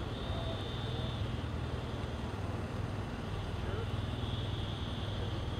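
Steady low hum of an idling engine, with faint distant voices and a high thin tone that comes and goes.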